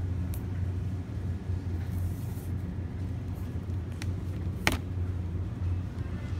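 Steady low rumble of a supermarket's background noise picked up by a phone, with a few short sharp clicks, one about a third of a second in and two more about four seconds in, as the phone is carried down the aisle.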